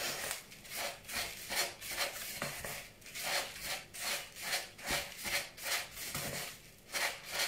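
Spatula stirring and scraping crushed speculoos crumbs with melted butter around a plastic chopper bowl (Tupperware Extra Chef): a gritty rasping in quick repeated strokes, about three a second.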